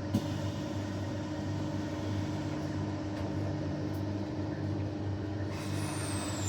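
Inside an electric passenger train standing with its doors just closed: a steady low electrical hum. Near the end a high whine starts and falls steadily in pitch as the train's traction equipment begins to move it off.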